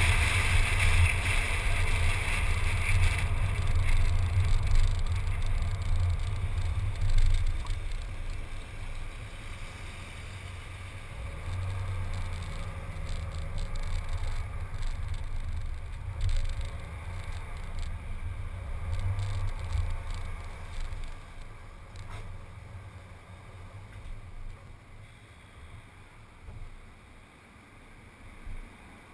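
Car road and wind noise picked up by a camera on the hood: a low rumble with hiss while driving, dying down over the second half as the car slows and comes to a stop.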